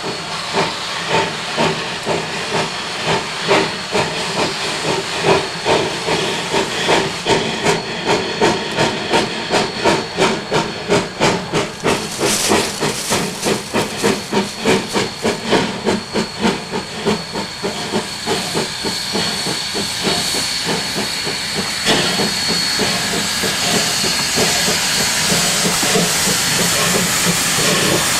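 Narrow-gauge Baldwin 2-8-0 steam locomotive, D&RGW No. 346, working a train with rhythmic exhaust chuffs that quicken to about three a second, over a constant hiss of steam. In the last third the beats merge into a steady, louder hiss and rumble as the engine and tender pass close by.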